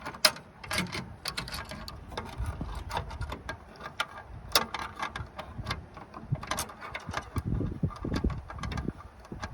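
Irregular small metallic clicks and taps of hand tools, pliers and a screwdriver, fiddling with a small screw on a bonnet release cable fitting.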